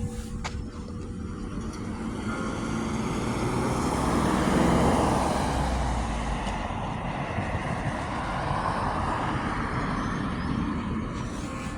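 A road vehicle driving past, its engine and tyre noise swelling to a peak about five seconds in and slowly fading, with a smaller swell near the end. The last hum of a church bell dies away in the first seconds.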